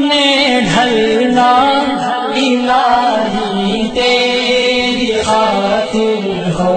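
Music: an Urdu devotional song (nasheed), a voice singing a drawn-out, gliding melody with no clear words between verses.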